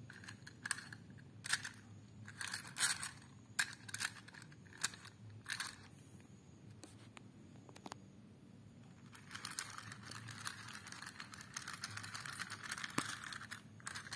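Small toy Thomas the Tank Engine trains handled on plastic toy track: a series of separate light clicks and knocks, then from about nine seconds in a continuous fine rattle as the toy wheels roll along the track.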